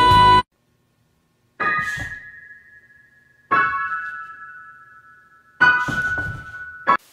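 The end of a loud tune cuts off about half a second in. Then three separate piano chords, about two seconds apart, each struck and left to ring out and fade, with a short fourth one near the end.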